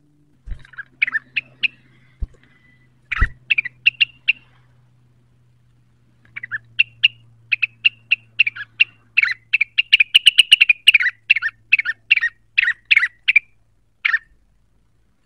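A cucak rengganis singing in rapid chattering runs of short, sharp chirping notes. After a couple of brief phrases it pauses, then gives a long, fast run that is densest and loudest in the middle. A few low knocks come in the first few seconds, over a faint low hum.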